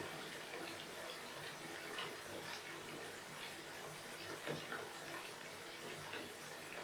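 Soft water sounds close to the microphone: scattered small splashes and drips, with a sharper splash about four and a half seconds in.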